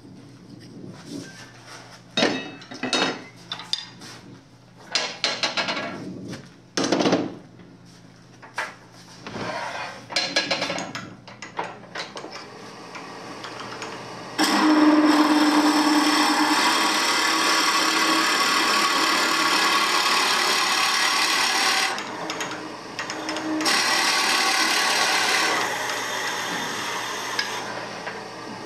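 A drill bit fed from the lathe tailstock boring into the end grain of a spinning wood blank: a steady scraping hiss for about seven seconds, a short pause, then a second, shorter bout. Before it, a scatter of knocks and clicks.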